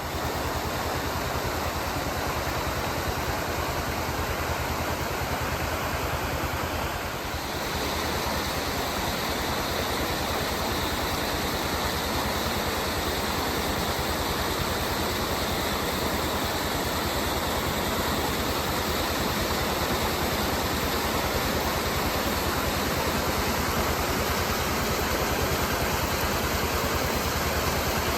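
Waterfall rushing steadily, a dense even noise of falling water, with a slight shift in the sound about seven seconds in.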